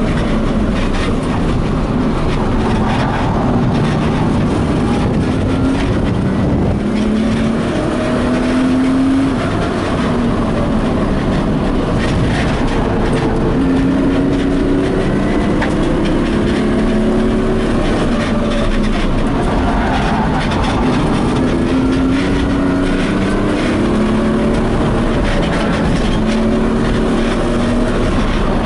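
BMW E36 coupe's engine heard from inside the cabin under hard track driving. The engine note repeatedly climbs with the revs and drops back at each gear change or lift, over steady road and wind noise.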